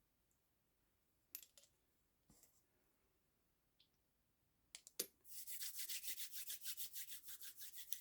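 A few light taps and clicks, then about three seconds of brisk rubbing of hands on skin, a quick even back-and-forth of about seven strokes a second, which stops abruptly at the end.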